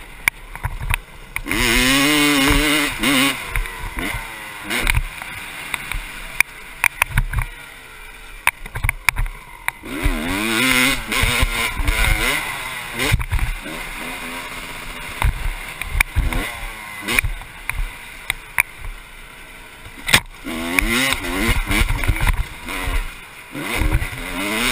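A 1996 Honda CR250's two-stroke engine under a riding motocross bike, revving up hard in several bursts and dropping away between them as the throttle is opened and closed. Sharp knocks and clatter are scattered throughout.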